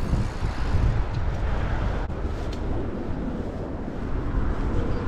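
Steady low wind rumble on the camera microphone while riding a bike, with a few faint clicks.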